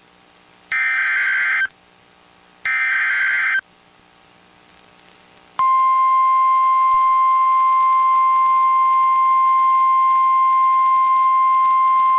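The EAS digital header (SAME) data burst is heard twice, each a harsh buzzing chirp about a second long. After about two seconds of near quiet, the NOAA Weather Radio 1050 Hz warning alarm tone comes on as one steady, loud, high beep that keeps going. Together these mark the start of a new weather warning.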